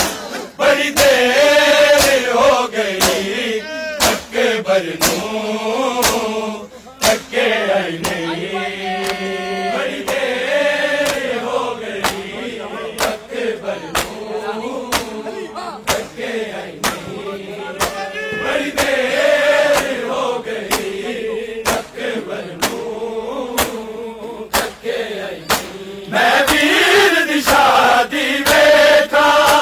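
Men chanting a noha (Shia lament) together, while the crowd's hand-on-chest matam keeps a sharp, steady slap a little more than once a second.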